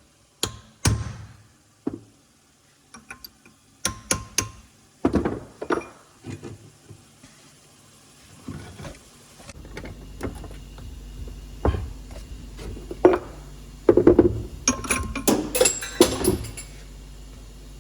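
Irregular metal knocks and hammer blows on steel parts, in short clusters, some ringing briefly. A steady low hum comes on about halfway through.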